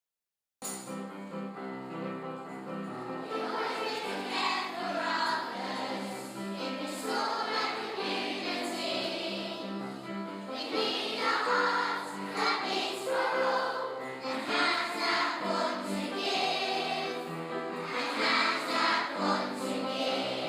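A choir singing a song with music, starting abruptly just after the start and cutting off abruptly at the end.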